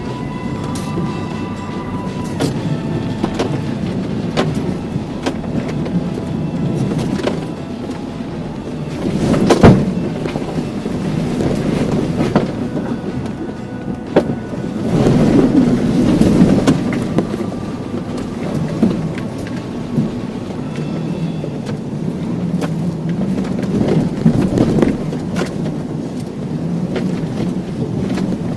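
First-generation Toyota Tacoma crawling over a rough, muddy off-road trail: the engine runs low under load amid steady rattling and knocking from the truck. There is a loud thump about ten seconds in, and the engine rises twice later on.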